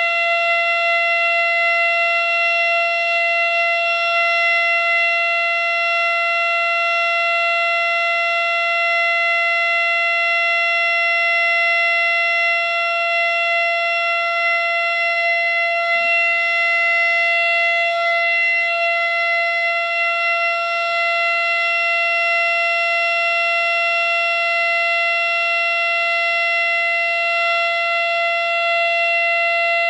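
Miniature 3D-printed Model 7 civil-defence siren running at full speed on a full alert signal, holding one steady pitch.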